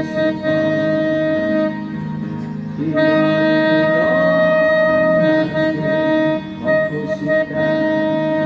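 Saxophone playing a slow melody of long held notes over a backing accompaniment, with a short break about two seconds in before the next phrase.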